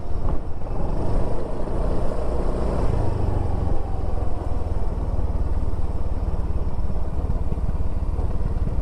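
A motor vehicle running steadily on the road: a continuous low rumble with no break.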